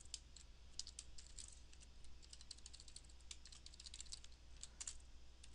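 Typing on a computer keyboard: quick, irregular keystrokes, faint.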